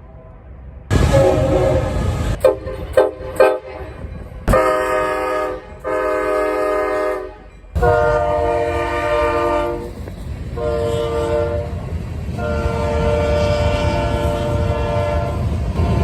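Locomotive air horns blowing a series of blasts, several tones at once: a few quick short toots early, then longer held blasts, with the low rumble of a passing train underneath. Separate recordings are spliced together with sudden cuts between them.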